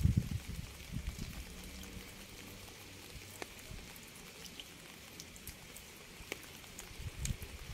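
Rain: a steady hiss with scattered single drops ticking sharply. A low rumble fades away in the first couple of seconds and comes back near the end.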